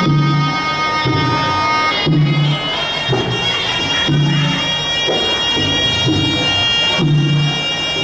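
Traditional Cambodian boxing ringside music: a sralai reed oboe playing a held, wavering melody over a drum beat of about one stroke a second.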